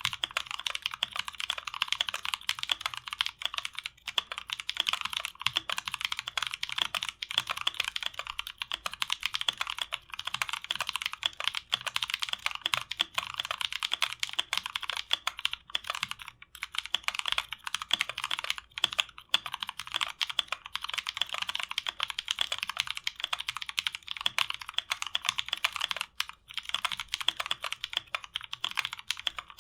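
Continuous typing on a 60% mechanical keyboard in a 512 WKL case with lubed NovelKey Blueberry tactile switches: a dense patter of keystrokes broken by a few short pauses. The switches have a scratchiness that the owner can hear and that the lube has not removed.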